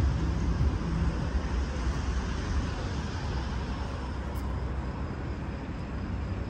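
Distant city traffic: a steady roadway hum with a low rumble, heavier in the first couple of seconds and easing after.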